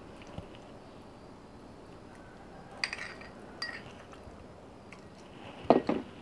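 Metal cutlery clinking and scraping against ceramic bowls as raw minced pork is spooned into a bowl of cracked eggs. A couple of light clinks come around the middle, then a quick run of louder clinks near the end.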